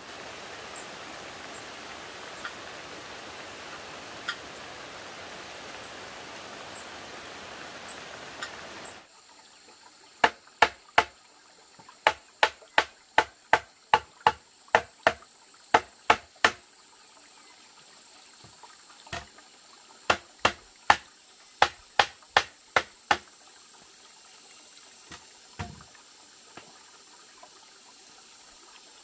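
Steady rain for about nine seconds, then a long run of sharp knocks as a bamboo frame is struck during assembly, coming in quick runs of two to three a second with short pauses between.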